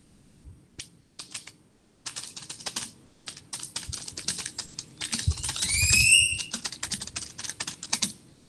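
Rapid typing on a computer keyboard, runs of quick key clicks. About midway, a short high rising squeak sounds over the typing.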